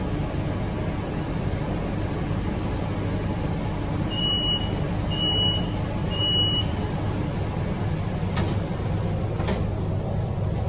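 Subway train's door-closing warning: three short high beeps about a second apart over the steady low hum of the train standing at the platform, then a couple of brief knocks as the doors shut.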